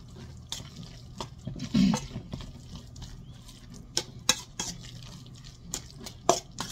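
Hands squishing and kneading a moist mixture of deviled ham, canned tomatoes and crumbled biscuits in a stainless steel bowl: wet squelching with scattered light clicks, and a dull thump about two seconds in.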